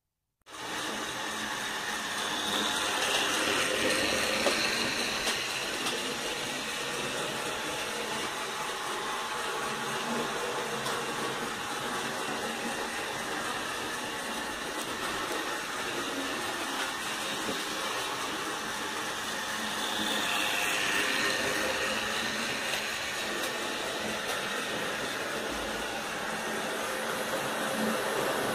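Model train running on a layout track: a steady whirring of its small electric motor and wheels on the rails, swelling twice as the train passes close.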